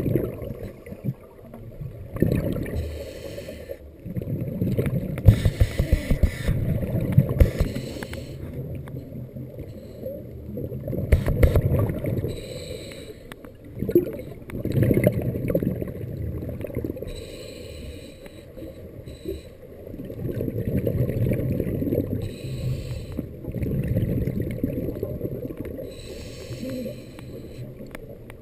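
Scuba diver breathing through a regulator, heard underwater: a hiss on each inhale and a rush of exhaled bubbles, repeating every few seconds.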